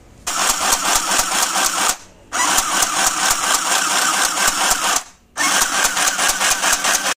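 YFSM 306 mini electric sewing machine stitching through denim, its needle running in a rapid, even clatter. It runs in three bursts, stopping briefly twice.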